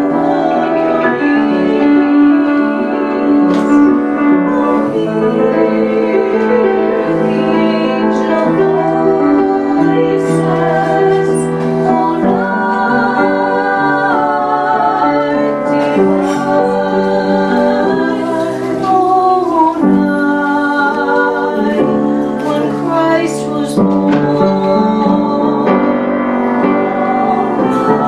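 Background music: a song with a singing voice over piano.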